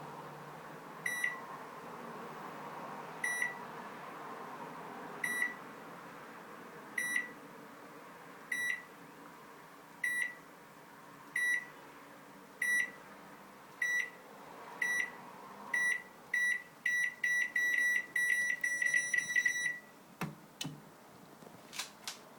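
Recreated heart-rate-monitor beeping: short high beeps, about one every two seconds at first, coming faster and faster until they run almost together, then stopping suddenly. A single click follows just after.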